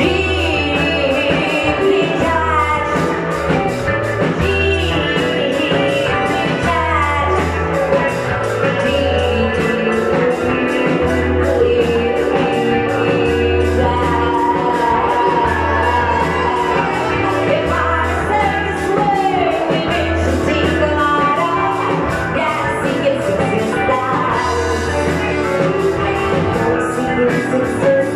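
Live rock band playing: a woman singing over drums, electric guitar, bass and saxophone, with a steady beat.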